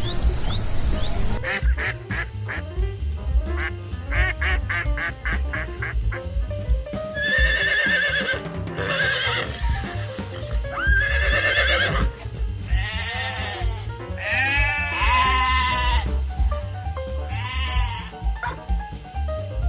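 Farm animals calling about six times, each call with a quavering pitch, over background music with a steady beat.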